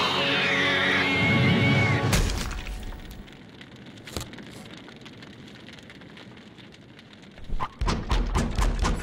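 Cartoon soundtrack: dramatic orchestral music swells and is cut off by a crash about two seconds in. A quiet stretch follows. Near the end a rapid run of foley thuds and hits begins, about five a second.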